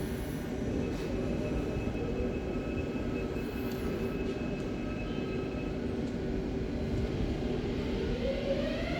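Electric train at the platform giving a steady rumble and hum. About eight seconds in, a whine from its traction drive starts rising in pitch as the train accelerates.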